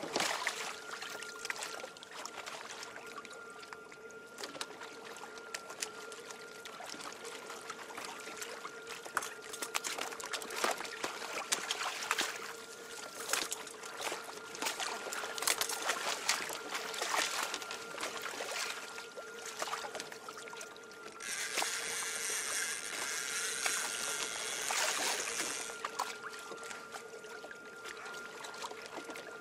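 Sea water sloshing and splashing against the hulls of a sailing kayak-trimaran, with many small knocks and splashes. About two-thirds of the way through comes a louder rushing hiss lasting about four seconds.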